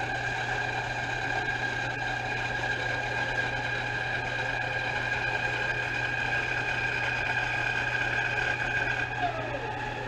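Band saw motor and blade running with a steady hum and whine.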